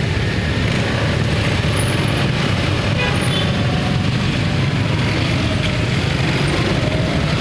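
Steady road traffic on a rain-wet street: engines running and tyres hissing, with a few brief high tones about two to three seconds in.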